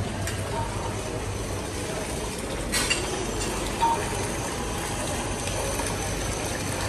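Steady background noise of a buffet restaurant: a constant low hum under a general din, with two short sharp clinks, most likely utensils or dishes, about three and four seconds in.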